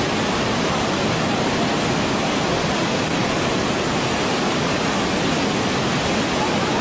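Waterfall, a steady unbroken rush of falling water.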